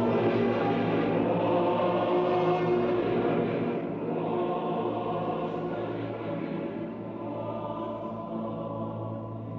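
Choral music: a choir holding sustained chords over a steady low drone, easing slightly in loudness about halfway through.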